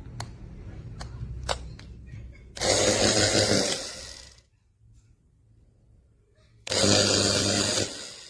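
BaBylissPRO Nano Titanium Portofino 2000-watt hair dryer handled with a few sharp clicks, then blowing loudly in two short bursts of about one and a half seconds each, the motor humming lower between them.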